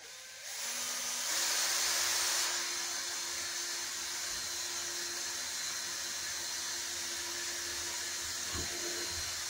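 Cordless drill running steadily as it bores a pilot hole through a balsa wing's trailing edge into the wing mount; the motor spins up over the first second.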